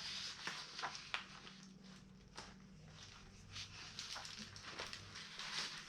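Faint scattered light ticks and rustles, about eight of them, spread through the pause, over a low steady hum.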